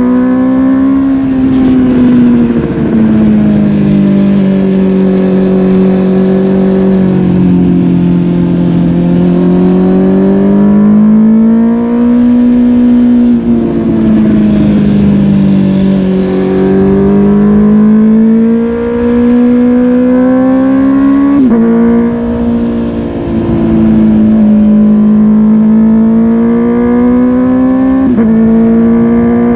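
Honda CB650R's inline-four engine through a MIVV GP Pro Carbon aftermarket exhaust, riding along with the revs slowly rising and falling as the throttle is opened and eased. The pitch drops once near the start, at a gear change, and jumps sharply up twice near the end, over a steady rush of wind and road noise.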